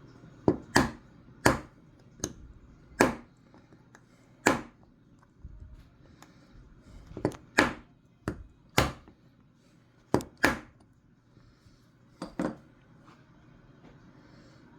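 Sharp metal taps, about fourteen at irregular intervals, some in quick pairs, as a pin is tapped into the trigger guard of a Marlin/Glenfield Model 60 .22 rifle during trigger-group reassembly.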